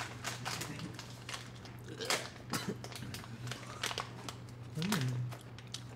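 Crinkling of a chocolate truffle's plastic wrapper being handled and eaten from, with small clicks of chewing and mouth sounds. A short voiced hum comes near the end.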